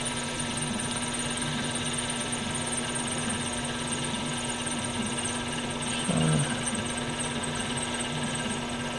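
Small metal lathe running while an HSS tool bit takes a light cut on a stainless steel taper: a steady motor hum with a constant whine.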